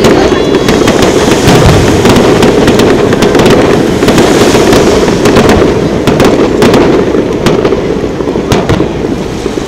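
Aerial fireworks shells bursting in quick succession: many sharp bangs and crackles close together over a steady low rumble, thinning out near the end.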